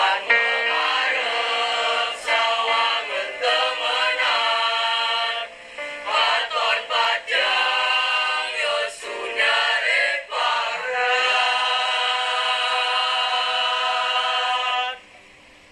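Mixed choir of boys and girls singing in harmony, phrases moving quickly at first, then settling into a long held chord that breaks off about a second before the end.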